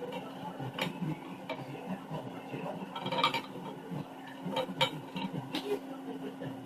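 A few scattered clicks and clinks, like tools and metal parts being handled, over a steady low hum.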